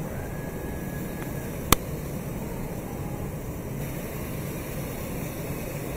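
A truck's engine and hydraulics run steadily as its tilting bed lowers a large wooden crate. One sharp knock comes a little under two seconds in.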